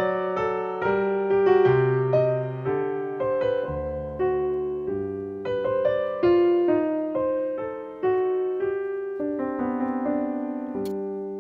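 Background piano music: single notes played one after another over held lower notes, each one struck and then fading.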